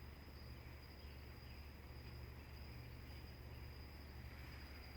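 Faint outdoor quiet with a thin, steady, high-pitched trill typical of crickets, over a low steady hum.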